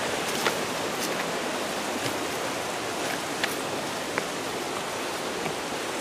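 Steady rushing of a river or stream, with a few faint clicks, about three in all.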